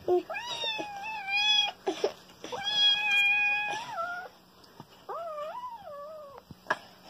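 Cat meowing three times, each meow long and drawn out, the last one lower in pitch.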